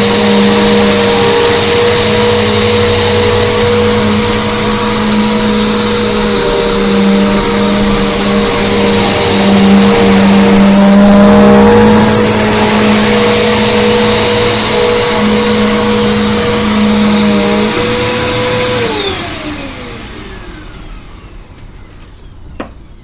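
Bissell Big Green Commercial BGU1451T upright vacuum running steadily at full power. Near the end it is switched off and its motor whine falls in pitch as it winds down. A sharp click comes just before the end.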